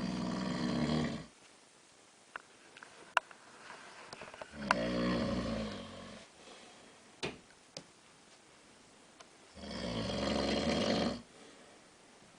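A man snoring in his sleep: three long snores, about every five seconds, with quiet breathing gaps between them. A few faint clicks sound in the gaps.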